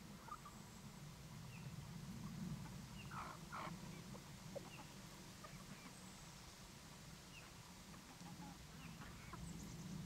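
Faint, soft calls of German bush chickens feeding from a hand, with two louder calls about three seconds in, over a low steady hum.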